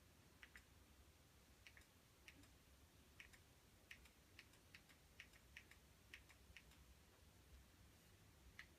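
Faint clicking of the Fire TV Stick remote's navigation buttons pressed over and over as the menu steps from tile to tile, each press a quick double click, about a dozen presses coming quickest in the middle.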